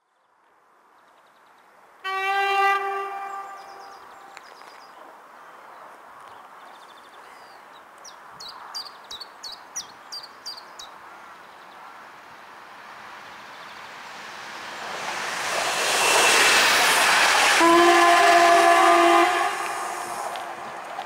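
Train horn sounding twice: a single-pitched blast of about a second and a half near the start, then a longer blast of several tones at once near the end. A rushing noise swells under the second blast.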